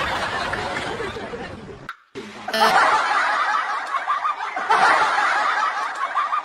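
Laughter and snickering, cut off for a moment about two seconds in and then going on.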